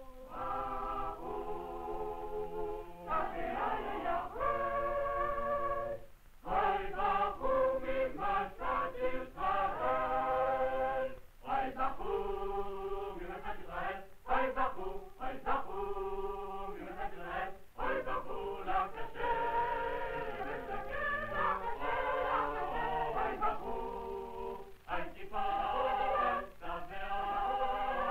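A choir singing in phrases of held notes, with short breaks between phrases.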